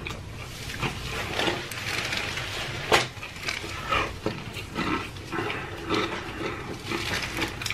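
Close-up chewing and lip-smacking of fast food, wet mouth noises in short irregular bursts, with one sharp click about three seconds in.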